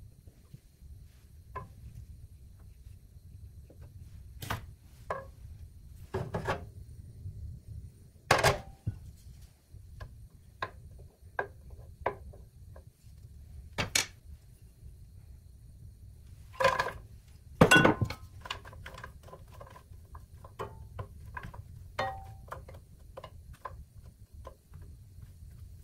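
Wooden spatula scraping and knocking against a ceramic nonstick frying pan, first spreading melting butter and then stirring bread cubes, in irregular clicks and knocks with the loudest ones about a third of the way in and again past the middle. A low steady rumble runs underneath.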